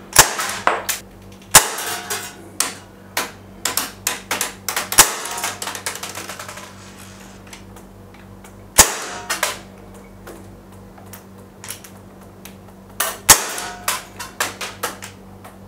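Umarex Smith & Wesson M29 CO2 BB air revolver, powered by a 12-gram CO2 cartridge and shooting 4.5 mm steel BBs, firing about five sharp shots a few seconds apart. Lighter clicks and ticks come between the shots, over a faint steady hum.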